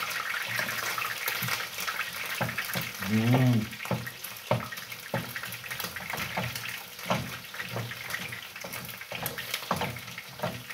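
Wooden spoon knocking and scraping in a steel pot as thick ugali is stirred and pressed, with irregular knocks every second or so over a steady hiss. A short hummed vocal sound comes about three seconds in.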